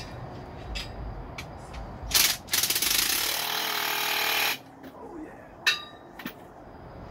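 A powered wrench rattles fast on a bolt for about two seconds, after a short burst, and cuts off abruptly. A sharp metallic click follows a second later.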